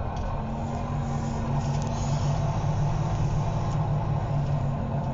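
Volvo B9TL double-decker bus's six-cylinder diesel engine running under way, heard from inside the bus. Its steady note grows a little louder about a second and a half in.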